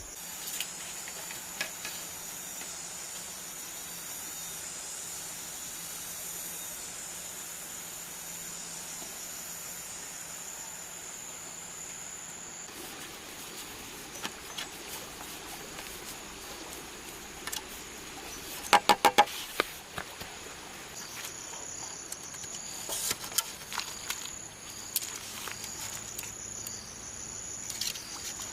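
Insects calling with a steady high-pitched drone that stops about halfway through and comes back later. Scattered light clicks throughout, and a quick run of four or five sharp, ringing knocks, the loudest sound, about two-thirds of the way in.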